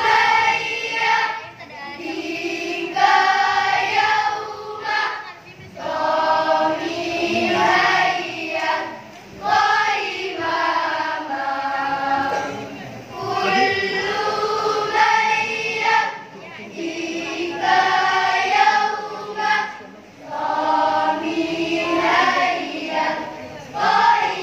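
Children's choir of schoolgirls singing together, the phrases separated by short breaks every few seconds.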